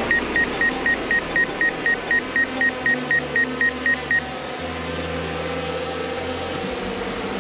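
Rapid electronic beeping: short high beeps at about four a second for some four seconds, then stopping, over a steady background hiss.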